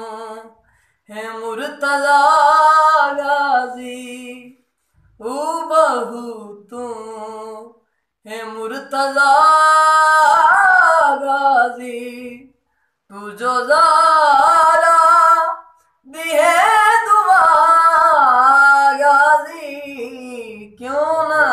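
A man singing an unaccompanied Shia devotional lament for Imam Hussain in a high voice. He sings about five long, drawn-out phrases with held, wavering notes and short breaths between them.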